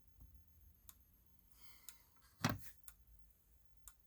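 Faint sharp clicks about once a second from a flashing fire alarm strobe, with a louder thump about two and a half seconds in.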